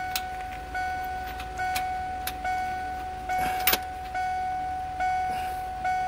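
The van's dashboard warning chime ringing over and over, one steady bell-like tone struck again a little more than once a second. About halfway through, a single sharp metallic clink of the socket and extension against the engine.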